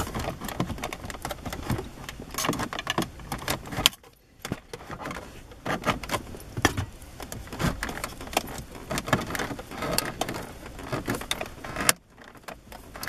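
Plastic and metal clicking, knocking and rattling as a car-stereo mounting frame is handled and pressed into the dashboard's radio slot, stopping briefly twice.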